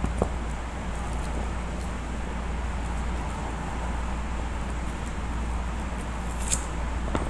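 Steady low background hum and noise, with a few light clicks and taps, one sharper click near the end.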